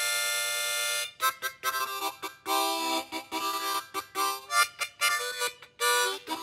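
Intro theme music: a long held chord for about the first second, then a lively run of short notes.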